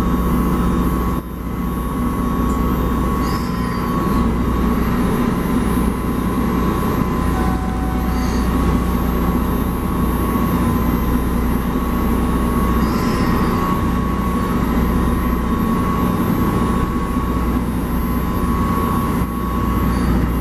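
Boat's onboard machinery running with a steady, continuous drone and a constant higher hum.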